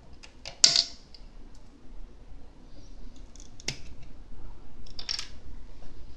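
Several sharp clicks and taps of small hard pieces handled by hand at a 3D printer's bed. The loudest comes under a second in, with single clicks near four and five seconds in.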